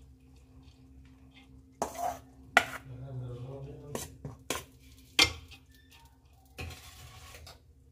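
Perforated steel skimmer scraping and knocking against metal cooking pots while scooping boiled rice: about six sharp clinks, two of them much louder than the rest, with softer scraping between.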